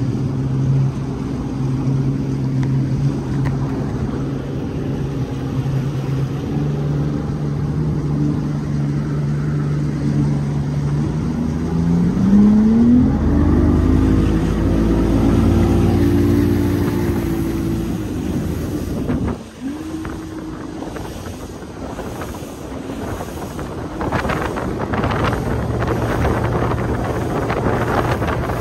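Bass boat's outboard motor running at low speed, then throttled up about twelve seconds in, its hum rising in pitch and holding higher. It drops away abruptly about two-thirds through, and wind buffets the microphone near the end.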